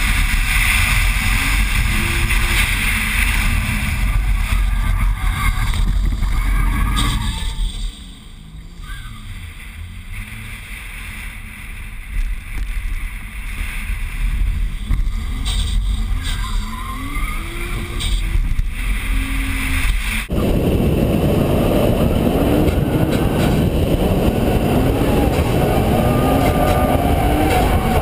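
Car being driven hard around a track, heard from a camera on its bonnet: the engine note repeatedly rises and falls under heavy wind noise on the microphone. It gets quieter for a few seconds about eight seconds in, then from about twenty seconds in it is suddenly louder, with repeated rising engine notes.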